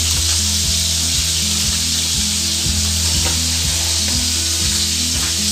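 Steady sizzling hiss of hot cooking: orange juice just poured into hot caramelised sugar bubbling in a saucepan, with duck fillets searing in butter in a pan alongside. Low background music plays underneath.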